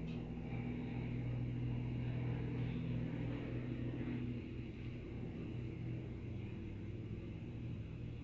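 Steady low mechanical hum with a faint rumble, a little louder in the first few seconds.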